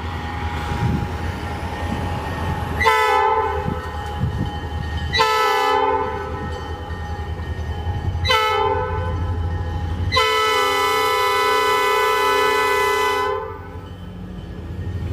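Locomotive air horn of ELS 501, an SD40-2, sounding four blasts (two longer, one short, then one long), the grade-crossing signal, over a steady low rumble.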